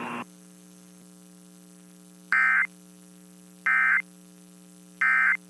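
Emergency Alert System end-of-message data code: three short, identical buzzing digital bursts about a second and a half apart, marking the end of a weekly test. A faint steady electrical hum runs underneath.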